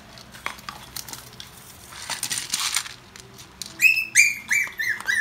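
Toy poodle puppies at a steel food bowl: a few clicks and a stretch of scuffling at first, then, a little past halfway, a quick run of high-pitched puppy yelps, about three a second, each dropping slightly in pitch.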